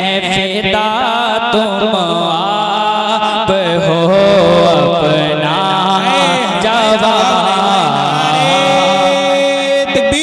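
A male naat singer's voice drawing out wordless, ornamented notes that waver in pitch, ending on a long held note, over a steady low drone.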